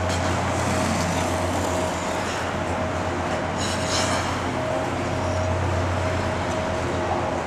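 Steady low hum and rumble of an indoor ice rink, with a faint steady tone, and a brief scrape of skate blades on the ice about four seconds in.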